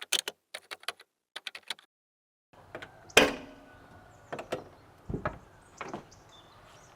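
A quick run of light clicks, then a single loud bang about three seconds in, followed by a few lighter knocks.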